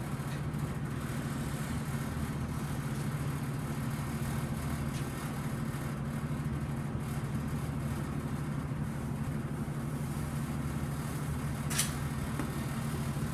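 Steady low mechanical hum, like a motor or fan running, with a single sharp click about twelve seconds in.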